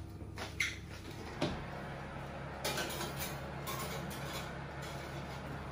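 Glass baking dish being slid into an open oven: a few short knocks and scrapes of glass on the metal rack, the busiest stretch near the middle.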